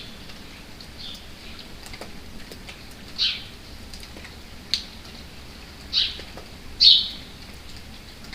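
Small birds giving short, high chirps every second or so, the loudest about three, six and seven seconds in, over a steady patter of light rain.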